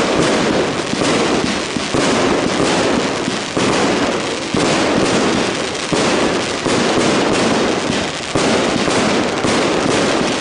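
Aerial fireworks display going off in a dense, continuous barrage of bangs and crackle. Fresh loud bursts hit about three and a half, six and eight seconds in.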